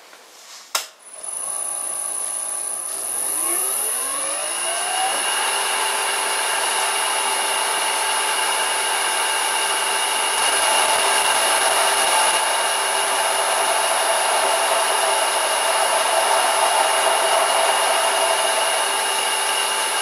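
An electric motor on a frequency drive spins up a drill chuck: a click, then a whine that rises in pitch for about four seconds. It then runs at a steady speed while a drill cuts into a steel block, with a steady cutting hiss under the whine.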